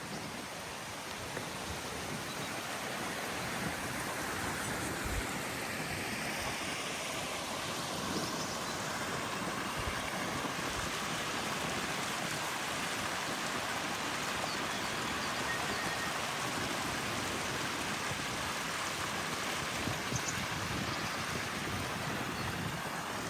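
Rushing water of a mountain stream, a steady rush that grows louder over the first few seconds and eases slightly near the end.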